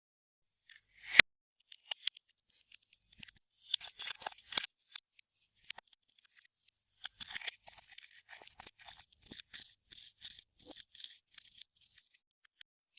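Clear slime being worked by hand, giving sticky crackles and small pops. There is one sharp click about a second in, a dense run of crackling around four seconds, and near-continuous crackling from about seven seconds on.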